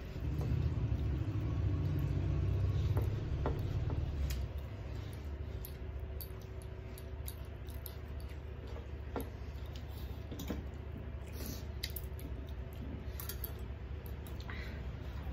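Scattered small clicks and scrapes of fingers and bangles on metal plates as rice is mixed and eaten by hand, over a steady low rumble that is louder for the first four seconds.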